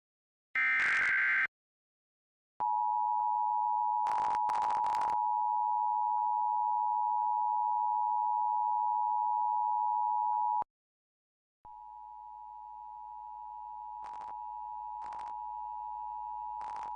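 Emergency Alert System test: a one-second burst of SAME header data tones, then the EAS two-tone attention signal (853 and 960 Hz together) for about eight seconds. The attention signal stops, and after a second it starts again quieter, slowly growing louder. A few short crackles cut across both.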